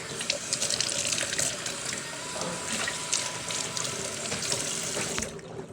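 Kitchen tap running into a sink while hands are washed under it, the water shut off near the end.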